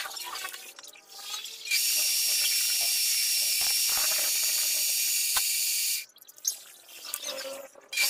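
Small metal lathe turning an aluminium bar while a drill bit in the tailstock chuck bores into it: a steady high-pitched hiss that starts abruptly about two seconds in and cuts off about six seconds in, with quieter clicks before and after.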